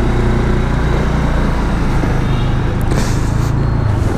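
Honda SH125i scooter's single-cylinder four-stroke engine running steadily as the scooter pulls away, with a short burst of hiss about three seconds in.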